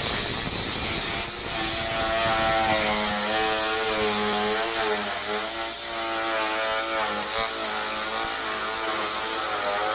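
Milling machine for SIP panels running: a motor whine made of several tones that waver slowly up and down in pitch, over a steady high hiss.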